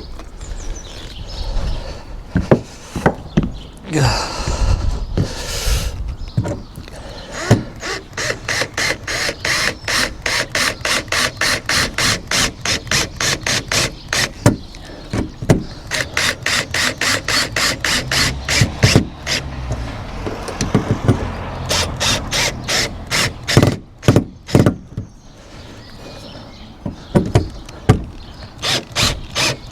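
Self-tapping screws being driven home into solar panel mounting brackets on a van's metal roof: a tool clicks rapidly in long even runs, about three to four clicks a second, with a few heavier knocks in between.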